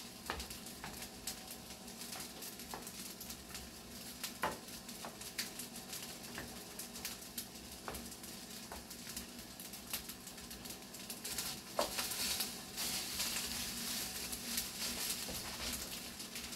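Green beans and egg frying in a pan on a gas burner, sizzling steadily, with frequent clicks and scrapes of a spatula stirring against the pan. The sizzle swells louder about twelve seconds in.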